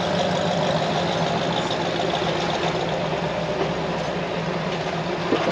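Vehicle engines running steadily, a continuous low drone, as a Ford Raptor pickup is pulled up a rock ledge on a tow strap by a recovery rig.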